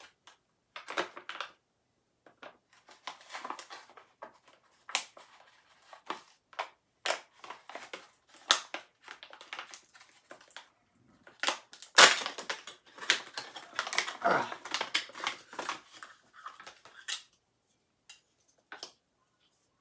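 A small wrapper packet handled and torn open by hand: irregular crinkling and crackling rustles in clusters, loudest about twelve seconds in.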